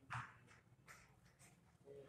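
Small paperboard cube box handled by hand as its lid flap is opened and the wrapped cube is worked out: one short scrape just after the start, then a few faint, brief rustles.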